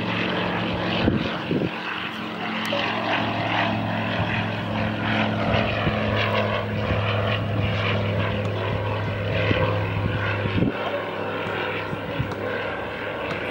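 Tecnam P92 light aircraft's engine and propeller droning steadily at climb power as it takes off and climbs away, with a few brief thumps.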